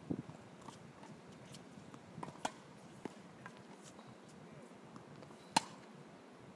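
Tennis balls struck by a racket during ground-stroke practice: sharp pops about every three seconds, the loudest about two and a half seconds in and again near the end, with fainter clicks between.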